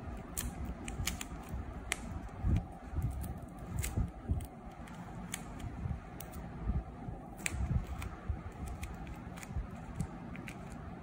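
Fingers handling a paper squishy wrapped in clear packing tape, folding and pressing the taped edges down. Scattered small crinkles and sharp clicks come at irregular moments, with soft low thumps.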